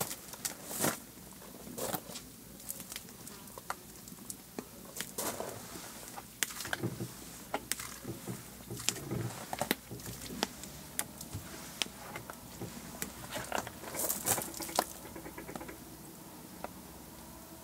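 Wet wooden tabletop being wiped by hand with a cloth, with scattered water drips and patters at uneven intervals.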